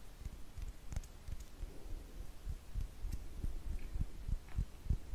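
Hands brushing and rubbing close to a microphone for ASMR: soft, irregular low thumps and muffled rubbing, several a second.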